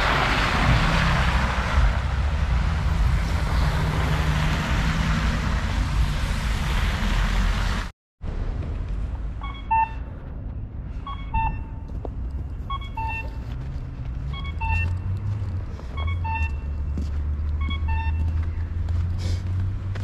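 Wind buffeting the microphone over a low traffic rumble. After a brief break, an accessible pedestrian crossing signal repeats a two-note cuckoo call, high then low, about every one and a half seconds. A low vehicle rumble grows near the end.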